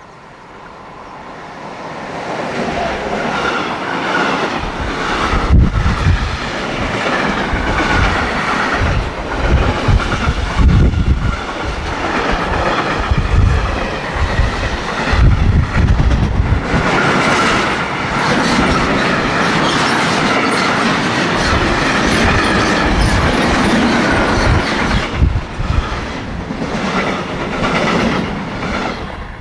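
Freight train of tank wagons and covered wagons running through a station at speed. It builds up over the first few seconds as it approaches, then passes close by with a heavy rumble of wheels on rail and repeated thumps of wheelsets over rail joints. It eases off near the end as the last wagons go by.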